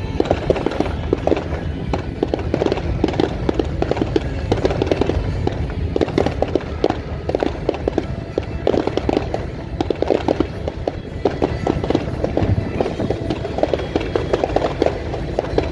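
Fireworks bursting and crackling in quick succession, a dense run of pops, with music playing.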